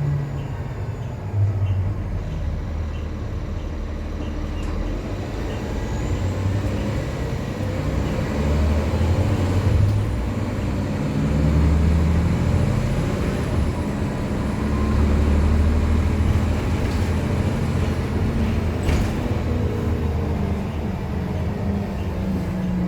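Nova Bus transit bus with a ZF automatic transmission driving, its engine note rising and dropping back repeatedly as it accelerates and shifts through the gears, with a faint high whine through the middle. A sharp knock comes about three-quarters of the way in.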